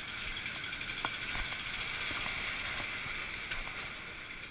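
Steady rushing noise of riding a bicycle along a wet street, with a few faint clicks and short chirps scattered through it.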